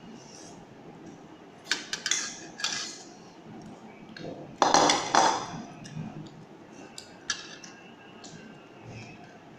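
Cutlery clinking and scraping against a plate while eating, in several short bursts, the loudest about halfway through.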